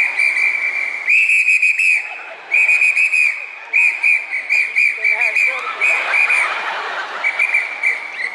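Whistle blown in a string of short and longer shrill blasts, each with a warbling trill, over faint audience murmur.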